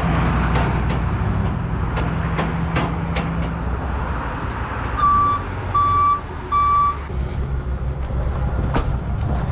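Work truck's engine running while it manoeuvres, with its reverse alarm beeping three times midway.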